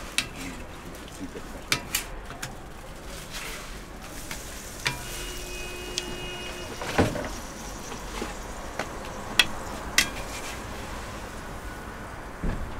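Crepe batter sizzling on gas-fired crepe griddles. A handful of sharp clicks and knocks sound as the spatula and wooden spreader touch the hotplates.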